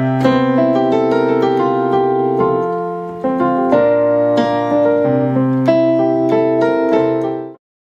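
Piano playing sustained chords with melody notes on top, a new chord struck about three seconds in; the music cuts off suddenly near the end.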